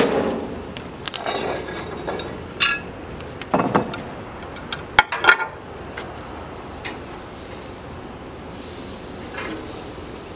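Metal grill tongs clinking and tapping against the grill grates several times as chicken breasts are turned, over a steady sizzle of the meat that grows louder near the end.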